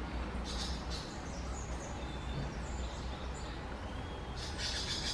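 Wild birds giving short high chirps and calls, scattered at first and bunched together near the end, over a steady low rumble.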